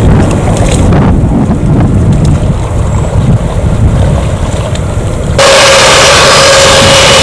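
Wind buffeting the microphone over a low rumble, then about five seconds in an abrupt cut to the loud, steady whine and roar of a jet airliner's engines, with a held mid-pitched tone.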